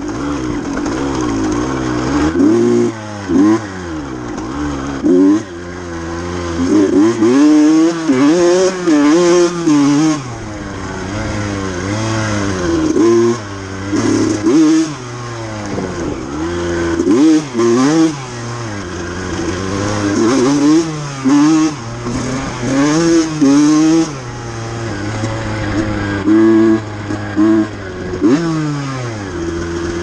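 KTM two-stroke dirt bike engine revving up and down again and again under hard acceleration on a trail. The sound drops off sharply many times as the throttle is shut or a gear is changed. The clutch engages badly, which the rider puts down to a clutch basket notched by the plates.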